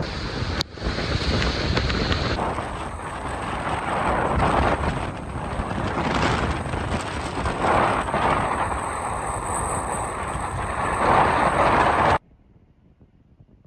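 Strong wind buffeting the microphone, a loud, uneven rush that swells and falls and cuts off abruptly near the end.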